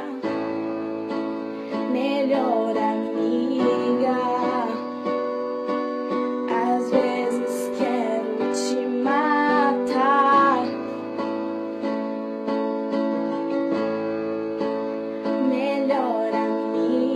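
Background music: a song passage with plucked strings over held chords and a wavering melody line.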